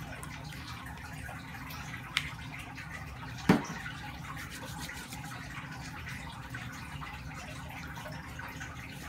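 A plastic Johnson's baby lotion bottle being handled, over a steady room hiss: a light click about two seconds in, and a louder sharp sound about a second later.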